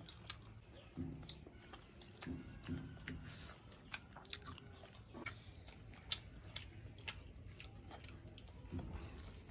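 People eating porotta and pork fry with their hands: faint chewing with scattered sharp smacking clicks from lips and fingers.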